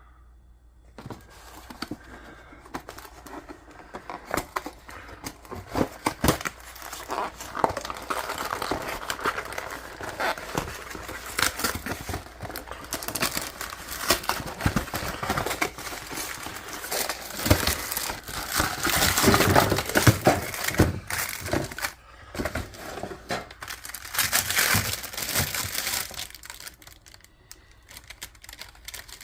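Crinkling and crackling of microwave-dinner packaging being handled: irregular rustles and clicks, loudest about two-thirds of the way through.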